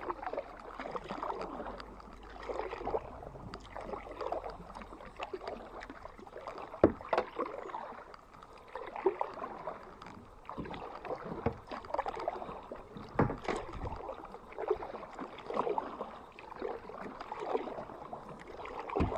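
Canoe paddle strokes in calm river water: the blade dipping and pulling in an uneven rhythm, with splashes and drips, and a few sharp knocks along the way.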